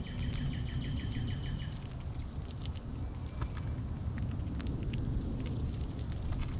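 Eastern gray squirrel cracking and chewing seeds, heard as sharp clicks scattered throughout over a steady low rumble. For the first couple of seconds a songbird sings a rapid run of repeated short notes.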